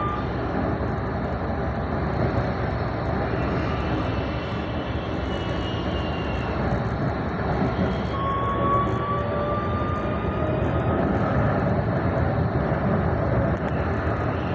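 Tram in motion heard from on board: a steady rumble of wheels on rails. A thin whine rising in pitch comes in about eight seconds in and lasts a couple of seconds.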